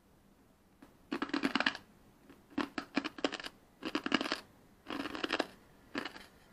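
Crunching of crisp air-fried nurungji (scorched rice crust) being bitten and chewed: a series of short, sharp crunching bursts starting about a second in, roughly one a second.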